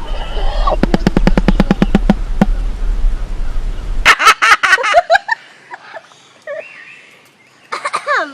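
Parrot vocalizing: a rapid rattle of about ten low pulses a second, then sharp squawks and sliding whistled calls.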